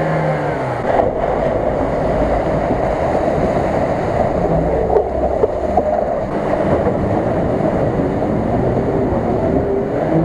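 Off-road 4x4 engines revving hard as the vehicles push through water, ice and slush, with a continuous wash of splashing water. The engine pitch rises and falls with the throttle.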